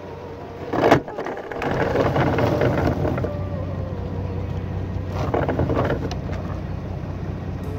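An anchor thrown from the bow of a wooden fishing boat hits the water with a short splash about a second in. The boat's engine then runs steadily, with another brief rush of sound around five seconds in.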